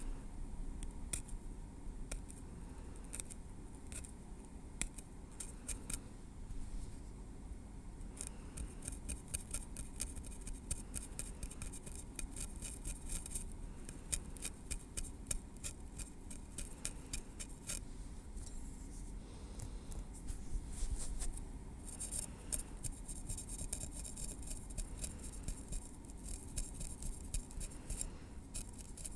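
Tweezers picking and clicking on the scalp close to the microphone: many small, sharp clicks in quick, irregular runs, densest about eight to eighteen seconds in and again from about twenty-two seconds.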